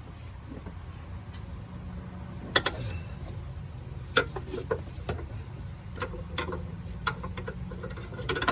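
Scattered sharp clicks and knocks of a seat belt and its hardware being handled and fed through a car's rear interior, over a steady low rumble. The loudest knock comes about two and a half seconds in, with a few more further on.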